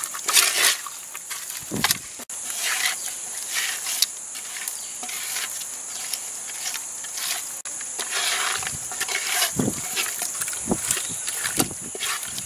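Bare hands mixing spice-coated raw fish pieces in a clay pot, with irregular wet squishing and rubbing sounds. Behind it runs a steady high-pitched insect chorus.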